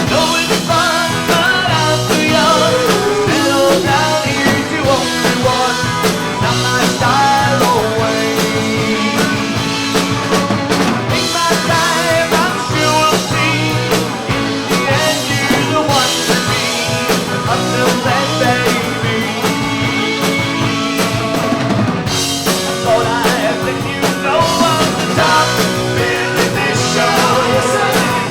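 Rock band playing a song live at rehearsal: drum kit and amplified instruments with singing, running on without a break.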